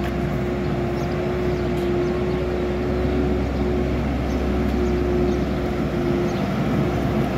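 Hidromek HMK 102S backhoe loader's diesel engine running steadily under load as it drives forward, levelling sand with its front bucket, with a constant hum held over the engine note.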